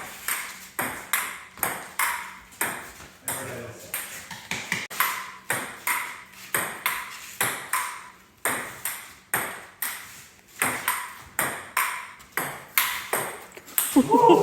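Table-tennis rally: a ping-pong ball clicking back and forth off paddles and table in a steady run of sharp ticks, about one and a half a second.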